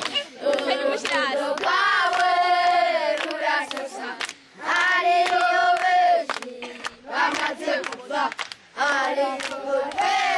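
A group of children singing a religious song together in phrases, the phrases ending on long held notes with short breaks between them.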